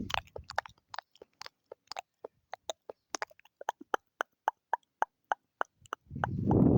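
ASMR mouth sounds close to the microphone: a quick run of wet tongue and lip clicks, about four or five a second. Near the end comes one louder, fuller mouth sound lasting about a second.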